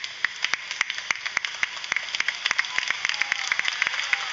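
A small crowd clapping: many sharp, irregular claps over a light hiss.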